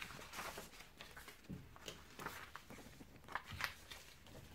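Faint rustling and a few soft taps of paper pattern pieces being handled and folded on a table.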